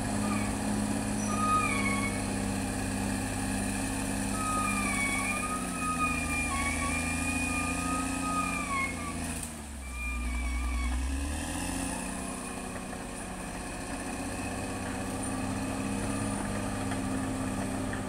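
Caterpillar D6R XL bulldozer's diesel engine running as the machine works the slope. Its pitch drops about six to nine seconds in, stays low for a moment, and picks back up about eleven seconds in as the dozer changes direction. A high, wavering whine is heard over the engine during the first half.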